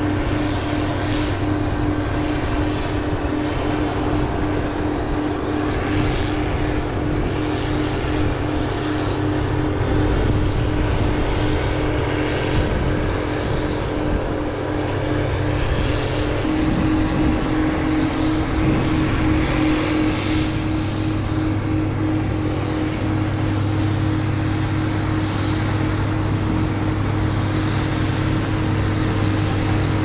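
Steady hum of a multirotor drone's motors and propellers, with a slight shift in pitch about halfway through.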